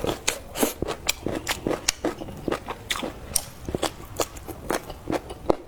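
A person biting and chewing food close to the microphone: a run of short crisp crunches and wet mouth clicks, a few each second.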